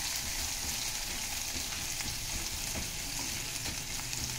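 Crushed garlic, ginger and fennel sizzling in oil in a non-stick kadai as they are stirred with a silicone spatula: a steady frying hiss while the garlic browns.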